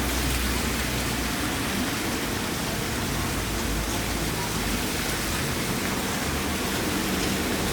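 Heavy rain falling, a steady hiss of water with no let-up.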